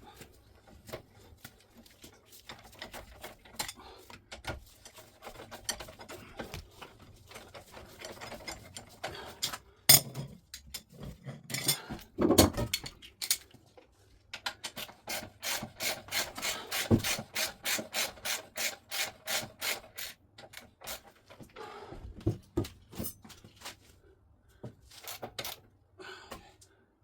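A socket ratchet clicking in quick, even strokes while engine mount bolts are worked loose, among scattered knocks and clinks of tools on metal, with a sharp knock about ten seconds in.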